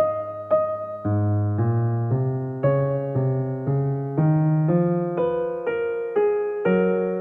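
Soft piano background music, a melody of notes struck about two a second over a slower bass line.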